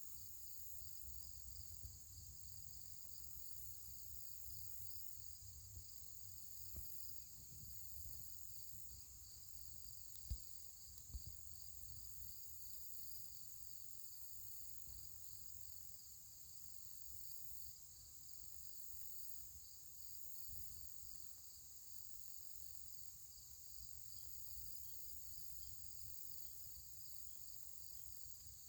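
Faint, steady chorus of insects chirping in a fast pulsing trill, over a low rumble, with two soft thumps about ten seconds in.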